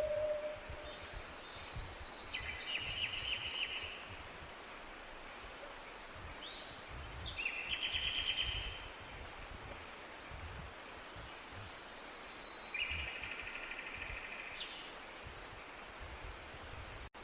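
Birdsong: a songbird sings three trilled phrases, one about every four to five seconds, over low outdoor background noise.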